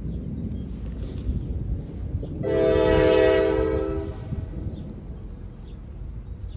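Approaching diesel freight locomotive sounding its multi-chime air horn: one long blast of several notes together, about two and a half seconds in, over a steady low rumble.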